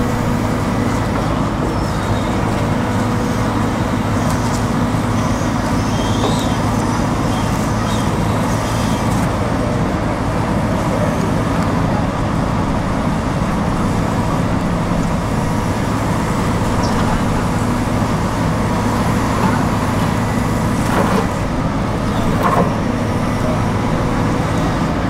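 Hitachi crawler excavator's diesel engine and hydraulics running steadily under load as it digs and swings soil with its bucket, with a couple of short clanks near the end.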